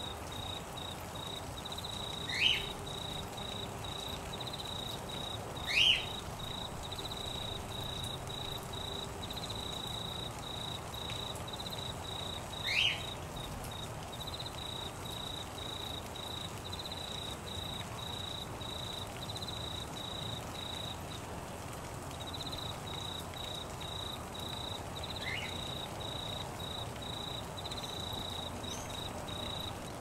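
A cricket-like insect trilling steadily at a high pitch in a pulsing run, with four short, sharp bird calls over it, the second the loudest, and a steady hiss of rain underneath.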